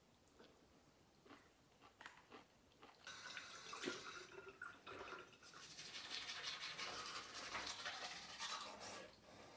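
Teeth being brushed with a manual toothbrush: rough, rapid scrubbing that starts about three seconds in, breaks off briefly, and stops just before the end. A few faint clicks come before it.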